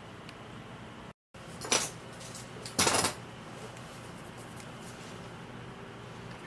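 Two short metallic clatters about a second apart: small metal tools or parts being handled and set down on a workbench. A brief dropout to silence comes just before them.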